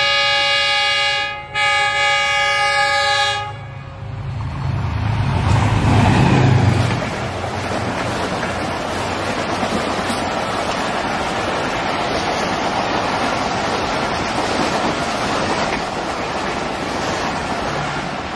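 Diesel locomotive of a Pakistan Railways express passenger train sounding its horn in two blasts, the first about a second and a half long and the second about two seconds, as it approaches at speed. The locomotive's engine rumble then builds and peaks as it passes, giving way to a steady loud rush of the passenger coaches running by on the rails.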